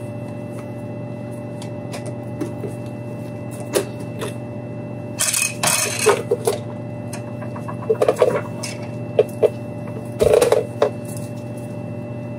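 Plastic clicks, scrapes and rattles as the battery cover is prised off a Mac Tools automotive scan tool's rubber-booted case to get at its battery pack. There is a cluster of scraping and rattling about five seconds in, then a string of sharp clicks and knocks, all over a steady low hum.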